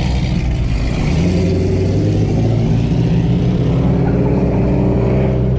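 Turbocharged Mazda Miata's four-cylinder engine running hard under load in a drift, its pitch fairly steady, with tyre noise over it.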